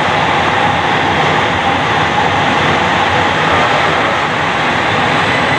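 LRT Jabodebek electric train running away along the elevated track: a loud, steady running noise with a held mid-pitched tone.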